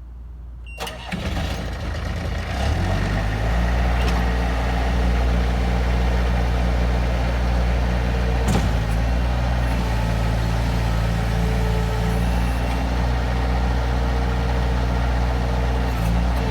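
Bobcat 793 skid steer's diesel engine starting up, its uneven sound over the first couple of seconds settling into a steady idle, with one sharp click partway through.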